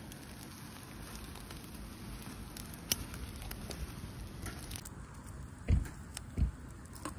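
Shrimp sizzling on a grill grate over an open fire, with the fire crackling and small clicks from metal tongs. Two soft low thumps come about two-thirds of the way through.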